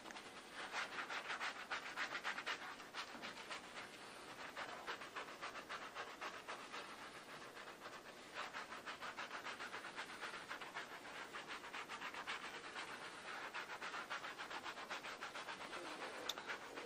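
Surgical scrub brush scrubbing soapy hands and forearms during a pre-operative surgical hand scrub: faint, quick repeated brushing strokes in runs of a few seconds.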